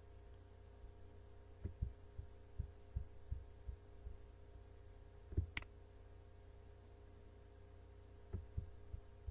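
Computer mouse clicking on a browser scrollbar, heard as soft low thuds over a steady low hum. A run of clicks comes near the start, one sharper click about five and a half seconds in, and a few more near the end.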